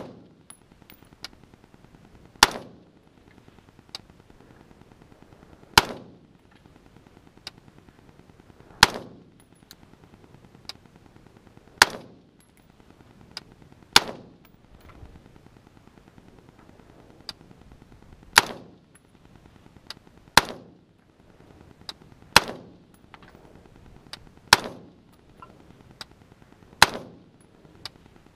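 Smith & Wesson M&P15 AR-15 rifle fired in slow, aimed single shots: about ten sharp cracks, two to four seconds apart, each with a short echoing tail. Fainter sharp cracks fall in between.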